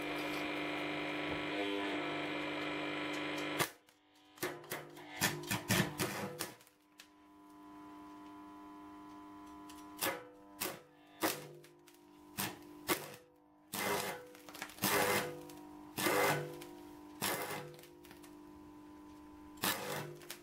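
Electric arc welding in short bursts: a dozen or so crackling spells, each a fraction of a second to about a second long, starting about four seconds in, with brief pauses between them. The welder runs on 200 V.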